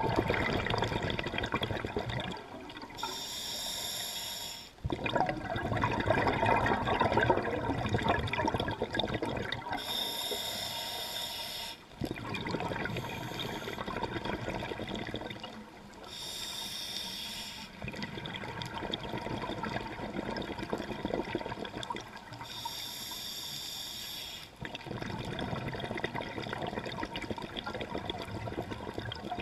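Scuba diver breathing through a regulator underwater. A hissing inhalation through the demand valve comes about every six seconds, four times, and each is followed by a long, bubbling exhalation.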